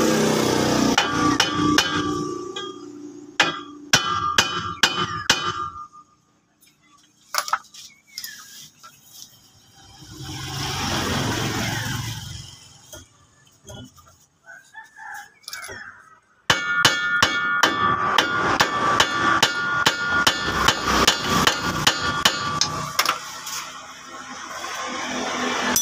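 Hammer blows on the steel propeller shaft's flange joint, sharp metallic strikes that ring. They come in two spells with a pause of several seconds between them, the second a fast run of many blows.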